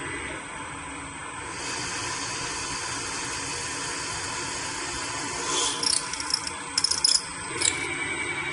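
Three-head CNC milling machine running its G-code program, a steady machine noise with a high hiss that comes up about a second and a half in. In the second half, a quick cluster of short, sharp, high-pitched rattles sounds over it.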